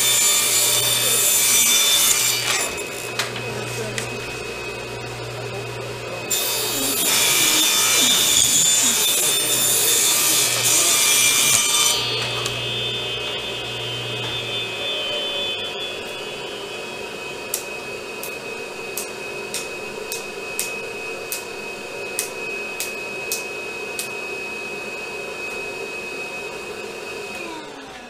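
Ridgid R4520 table saw ripping plywood into thin strips: two loud cuts with the blade running between them, until the saw stops about halfway through. A steady high whine from the shop vacuum hooked to the saw runs on, with light clicks for several seconds, and winds down just before the end.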